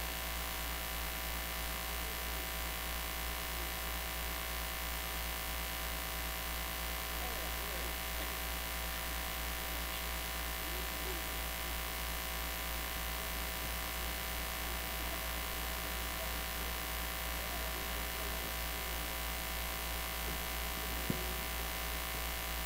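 Steady electrical mains hum and buzz from an idle PA sound system, with faint voices in the background and a single click near the end.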